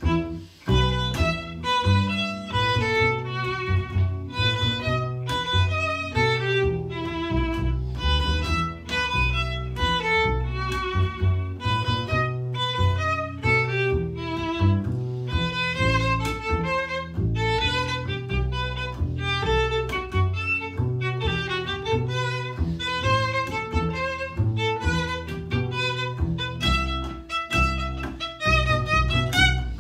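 Violin and double bass playing a duet: quick running notes on the violin over a bowed bass line.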